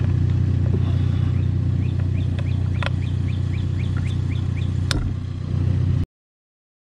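A steady low engine drone runs throughout, with a bird's quick series of short rising chirps over it and two sharp clicks, about three and five seconds in. The sound cuts off suddenly about six seconds in.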